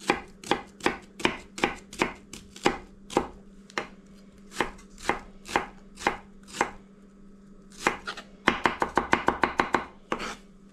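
Kitchen knife dicing an onion on a cutting board: knife strokes about two or three a second, a short pause, then a quick run of rapid chops near the end.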